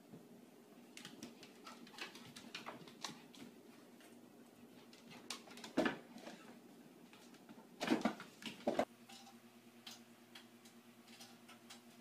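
Pets scuffling and playing on a hard floor: scattered light clicks and patters of paws and claws, with a few louder knocks about six and eight seconds in. A steady low hum follows near the end.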